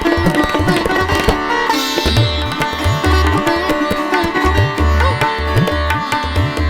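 Background music with a sitar and tabla: plucked strings over a steady drone, with bending low drum strokes.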